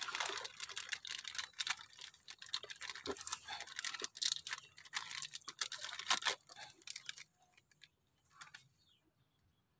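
Rapid small crackling clicks of a hand kneading wet cassava bait paste in a plastic basin, mixed with the crinkle of a seasoning sachet being emptied into it. The clicking dies away about seven seconds in.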